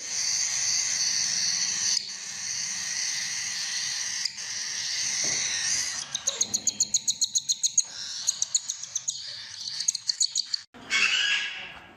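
A parrot calling: a steady high-pitched sound for several seconds, then a quick run of short chirps about six seconds in, and a short call near the end.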